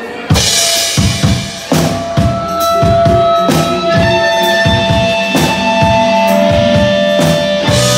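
Live rock band starting a song: the drums come in with a sudden loud hit, then keep a steady beat under sustained electric guitar notes that build up over the first couple of seconds.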